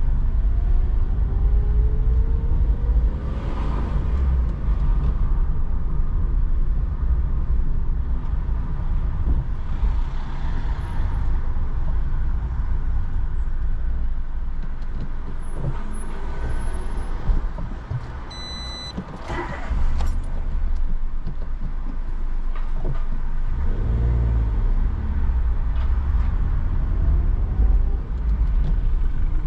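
Car interior noise while driving: a steady low road and engine rumble, with the engine note rising as the car picks up speed near the start. A brief electronic beep sounds about two-thirds of the way through.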